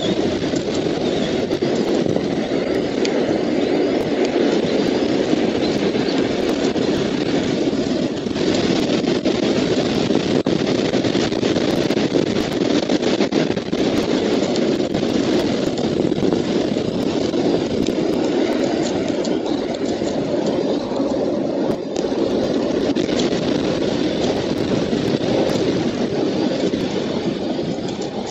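A steady rushing noise on the eagle nest camera's outdoor microphone, loud and even throughout.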